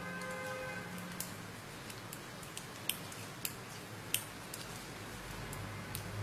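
Circular knitting needle tips clicking together as stitches are worked: a scattering of light, sharp clicks at irregular intervals over a faint low hum.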